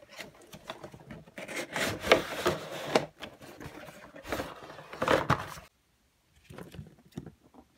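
Cardboard toy box being opened and handled, its flaps and packaging rubbing and scraping with a few sharp clicks. It comes in bouts, loudest about two and five seconds in.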